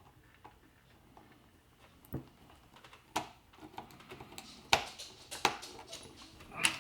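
Scattered sharp clicks and taps of small screws and the plastic case of a Yaesu MH-48 hand microphone being handled during reassembly, a few spaced about a second apart.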